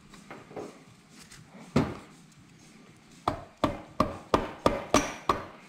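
Mallet taps on a Suzuki RGV250's cassette gearbox, knocking the transmission cassette home into the crankcase once its gears mesh. One sharp knock about two seconds in, then a quick run of seven knocks, about three a second.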